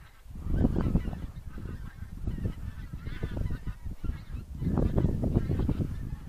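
Gusty wind buffeting the microphone, with geese honking faintly behind it.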